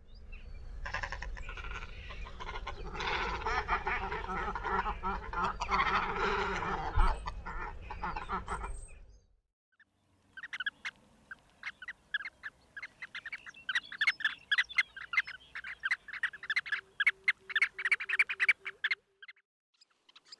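Water bird calls in two separate recordings: first about nine seconds of dense, overlapping calls over a low rumble, then, after a short gap, a fast run of short, sharp, repeated calls.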